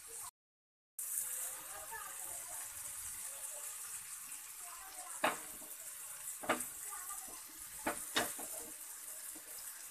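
Marinated chicken pieces frying in oil on a hot tawa at high heat: a steady sizzling hiss, with several sharp pops of spitting oil in the second half. The sound cuts out completely for a moment just after the start.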